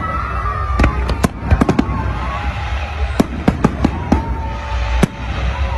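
Fireworks display: clusters of sharp cracks and bangs, about a dozen in all, over a steady low rumble.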